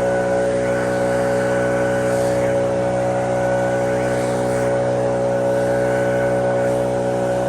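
Lawn mower engine running at a steady speed, a constant drone with no change in pitch.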